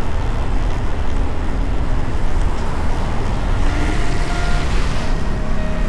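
Motorcycle riding at road speed: a steady engine and heavy wind rumble on the microphone.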